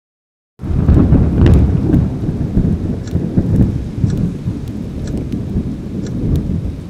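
Roaring fire sound effect: a dense low rumble with scattered crackles, starting abruptly under a second in.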